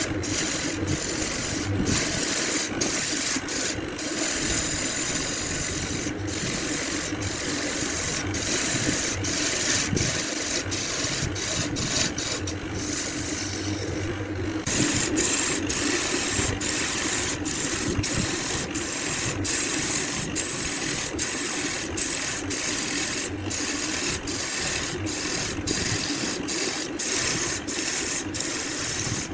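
Woodturning lathe running, with a tool or abrasive rubbing and rasping against the spinning wood over a steady motor hum. The noise is broken by many very short gaps.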